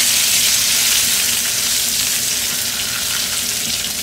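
A tadka of dry red chillies, cumin seeds and freshly added curry leaves sizzling in hot butter and oil in a frying pan, stirred with a spatula. The sizzle is steady and eases a little toward the end.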